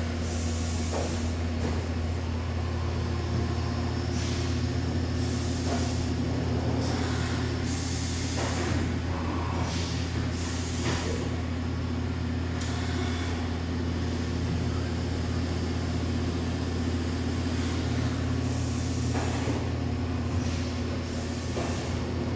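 Fadal VMC 4525 vertical CNC machining center running under power: a steady low hum, with short irregular bursts of air-like hissing on top.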